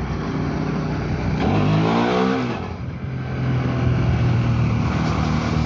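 Hyosung GT650R's V-twin engine accelerating, its pitch rising for about a second, then dropping back near the three-second mark and running steady.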